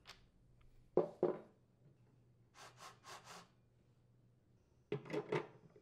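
Faint scraping and rubbing strokes of a nut driver working the clutch-cover nuts on a Craftsman chainsaw: a couple of strokes about a second in, three fainter ones in the middle, and a few more near the end.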